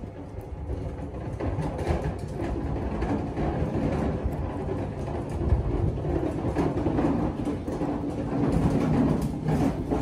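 A continuous low rumble that grows gradually louder, with a steady hum coming in over the last few seconds.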